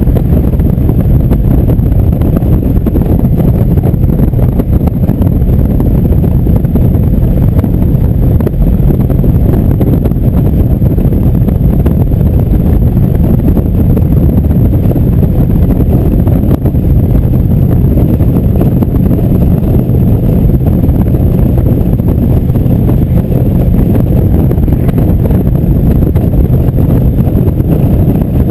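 Indian V-twin cruiser motorcycle running steadily at highway speed, its engine rumble mixed with wind rushing over the microphone.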